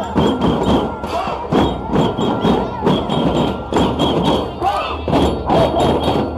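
Drums beating a steady rhythm at about two strokes a second, over the voices of a large crowd.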